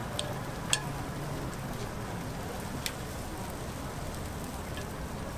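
Batter sizzling steadily in a hot cast-iron chrysanthemum-bread (gukhwappang) mold, with a few sharp clicks of a metal spatula against the mold and scoop as custard-cream filling is dropped into the cups. The loudest click comes about three-quarters of a second in.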